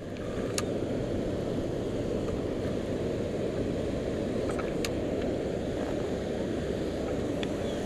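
Steady low rush of churning water below a dam spillway, with a few faint sharp clicks.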